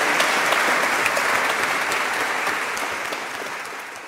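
Audience applauding, a dense patter of many hands clapping, fading away near the end.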